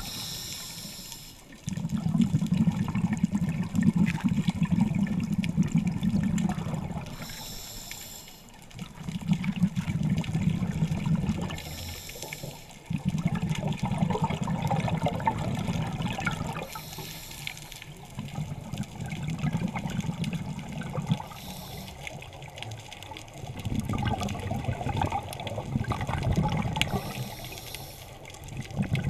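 Scuba diver breathing through a regulator underwater, heard close up. Each breath is a short hiss on the inhale, then a longer rush of bubbles on the exhale, about six breaths coming every four to five seconds.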